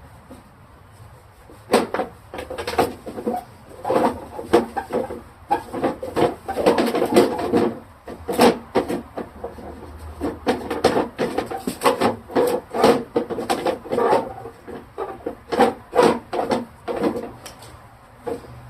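Irregular knocks, clunks and rubbing from refrigerator parts being handled and wiped down, a dense patch of clatter in the middle.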